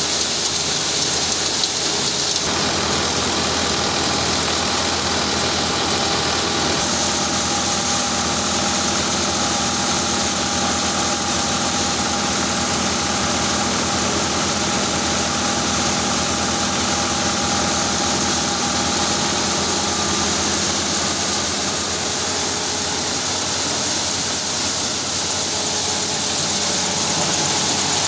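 Maize sheller driven from a Ford 4610 tractor's PTO, running steadily while shelling corn cobs. It makes a constant mechanical din of drum, belts and the tractor's diesel engine, with a hiss of kernels and husks.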